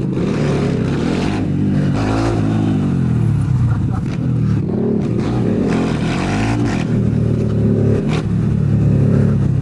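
Honda Grom single-cylinder motorcycle engine under way, its pitch rising and falling repeatedly as it accelerates and shifts through the gears.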